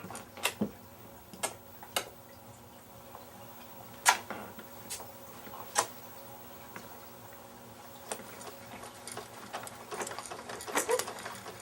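A baby's mouth clicks and smacks, made with her gums and tongue: single sharp clicks at uneven gaps of about a second or more, some in small clusters.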